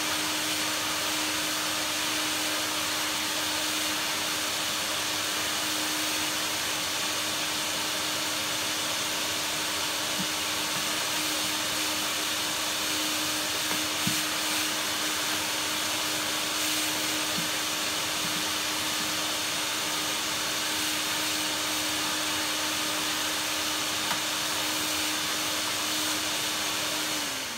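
Vax vacuum cleaner running steadily, sucking dirt out of the inside of a canister vacuum, with a few small clicks. Near the end it is switched off and the motor winds down in a falling whine.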